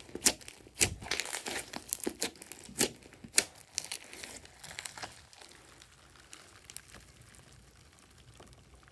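Hands squeezing and kneading fluffy pink slime with small foam beads, making sharp crackling pops and squelches. The pops come thick and loud for the first five seconds, then thin out to a few faint crackles.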